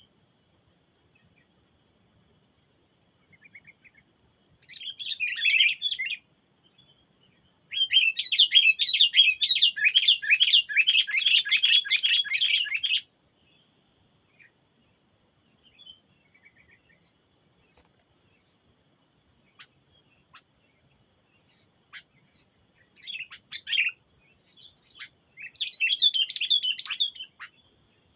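Songbird chattering in bursts of rapid, high notes: a short burst, then a long dense stretch of about five seconds, with scattered single chirps and two shorter bursts near the end.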